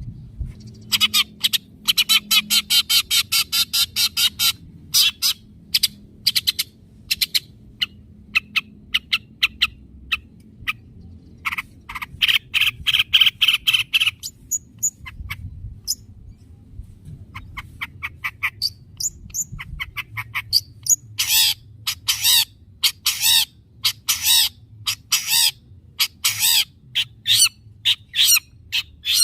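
Long-tailed shrike (cendet) singing: fast runs of sharp repeated notes and trills, with a harsh buzzy phrase a little before halfway and rapid chattering through the last third.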